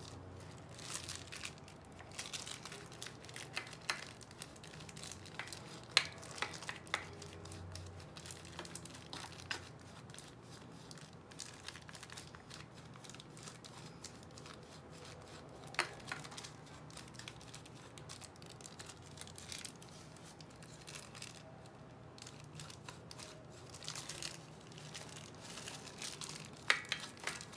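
Paintbrush scrubbing worn clutch-lining dust out of a small scooter engine's clutch housing, a faint scratchy rustle with crinkling of a plastic bag and scattered light taps and clicks.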